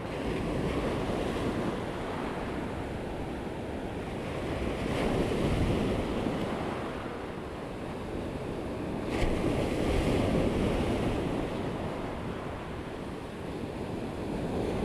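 Ocean surf washing in and out around the feet, with wind buffeting the microphone. The wash swells louder twice as waves come through, and there is a brief sharp tick just past the middle.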